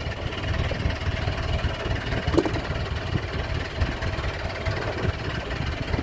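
Fishing boat's engine idling: a steady low rumble with a faint hum, and a light knock a little over two seconds in.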